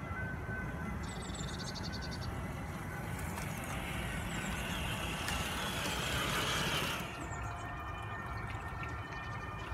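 Traxxas TRX-4 Bronco RC crawler's electric drivetrain and tyres pushing through grass and brush, a hissing rush that builds as it comes close and cuts off suddenly about seven seconds in.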